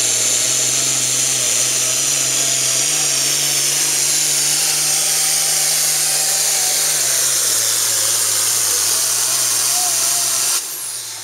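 Turbocharged diesel engine of a Super Farm pulling tractor running flat out while pulling the sled, with a loud high turbo whine that slowly falls in pitch. The engine note drops a little lower about seven seconds in, and the sound cuts off sharply near the end.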